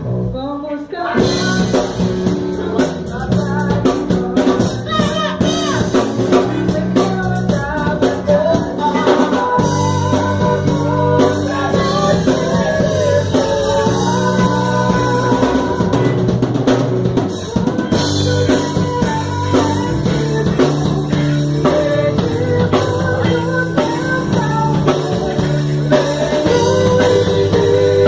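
A live band playing together: drum kit with kick, snare and rimshots, bass guitar, electric guitar and keyboard, with a short break about a second in before the groove resumes.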